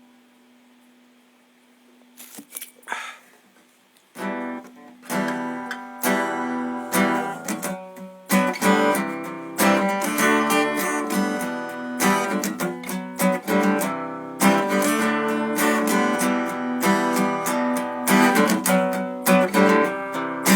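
Acoustic guitar intro of picked and strummed chords, starting about four seconds in after a few faint knocks over a low hum.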